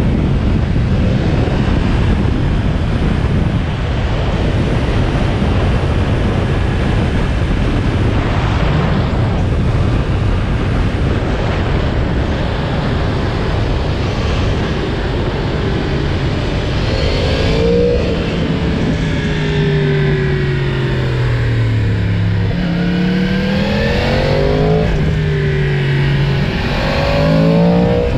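Yamaha MT-10's crossplane inline-four engine on stock exhaust, ridden at speed. For the first half wind rushes over the engine; in the second half the engine note comes through clearly, rising as the bike accelerates, dropping, then rising again through the revs.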